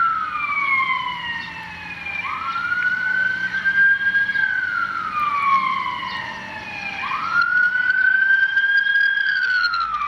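Ambulance siren wailing, sliding slowly up and down in cycles of about five seconds, played back through the small speaker of an Olympus VN-7200 digital voice recorder.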